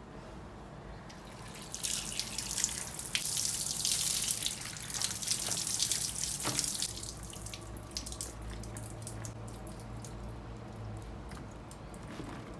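Water running from a tap and splashing over okra pods in a plastic colander as they are rinsed, starting about two seconds in. It drops away after about seven seconds, leaving scattered drips.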